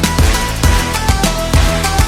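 Electronic background music with a fast, steady drum beat and held synth tones.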